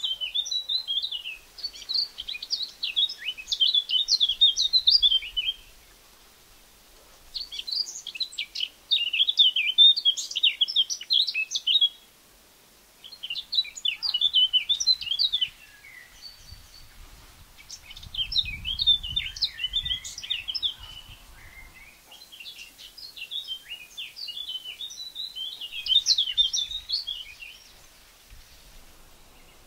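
Eurasian blackcap singing: five long warbling phrases of several seconds each, separated by short pauses.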